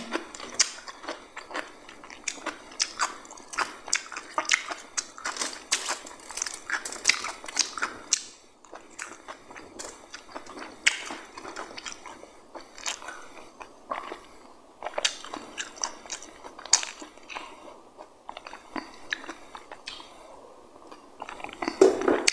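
Crunching and chewing of raw cucumber slices close to the microphone. Sharp crunches come thick and fast for about the first eight seconds, then more sparsely.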